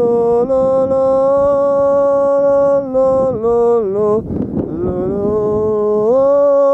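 A man singing long held notes, unaccompanied, in the open with wind on the microphone. The pitch steps down about three seconds in and climbs back up near the end.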